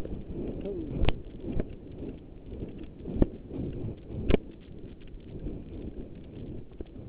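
A racehorse under saddle, heard from the rider's helmet: hoofbeats and the horse's breathing under a rush of wind on the microphone, with a few sharp knocks. The sound grows quieter near the end.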